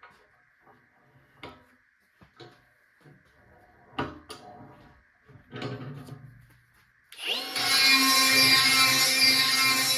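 Scattered clanks and taps of steel parts being handled, then about seven seconds in a die grinder spins up with a short rising whine and runs steadily.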